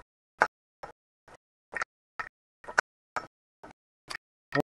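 Hand-cranked winch on a volleyball net post being turned, clicking at a steady rate of about two clicks a second. Near the end the clicks grow louder and heavier.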